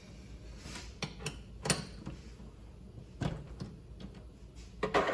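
Chuck key being worked in the three-jaw chuck of a Vevor mini lathe, with the spindle stopped: a few scattered metallic clicks and knocks, the loudest near the end.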